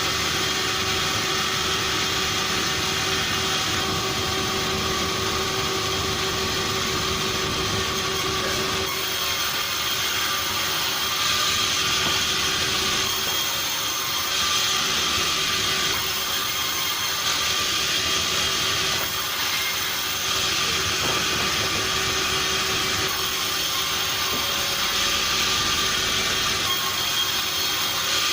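Sawmill machinery running steadily at a constant loud level, with a steady hum and whine and no breaks.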